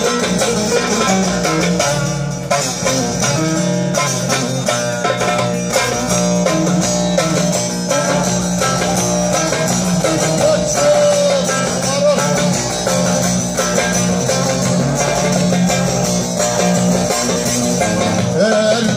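Amplified folk dance music led by a plucked string instrument, over a steady low held note.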